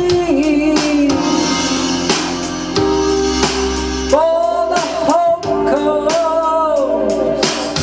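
A song: a singing voice over guitar and drums, with the sung melody coming back strongly about four seconds in.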